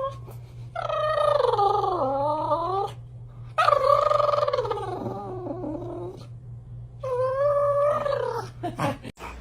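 A pet's vocal calls, three long drawn-out calls of about two seconds each, wavering and bending in pitch.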